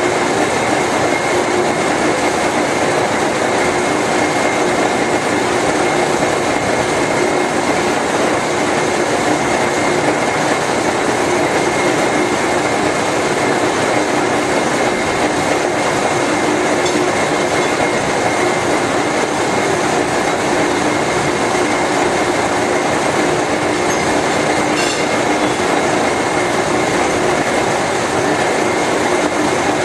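Large GE/Fitchburg horizontal spline and pinion hobber running under power: a loud, steady mechanical rumble and clatter with a steady high whine and a lower hum.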